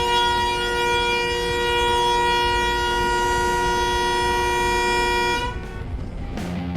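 A vehicle air horn held in one long, steady blast that cuts off about five and a half seconds in, leaving traffic noise.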